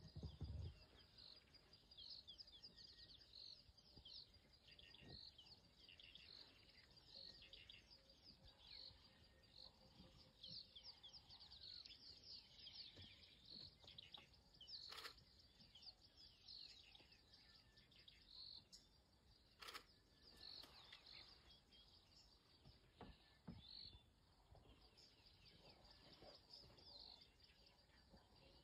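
Faint outdoor ambience of birds chirping, with one short high call repeating regularly, and two brief clicks about halfway through.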